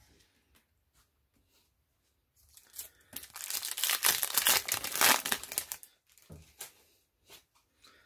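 Yu-Gi-Oh foil booster pack wrapper being torn open and crinkled: a dense rustle of about three seconds starting a few seconds in, followed by a few light ticks as the cards are handled.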